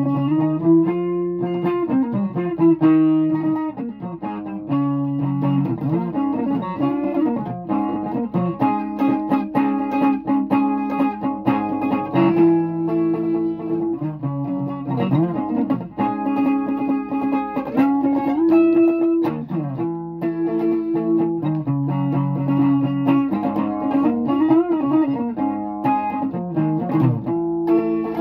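Guitar playing continuously: held chords and single notes, some of them bent up and down in pitch.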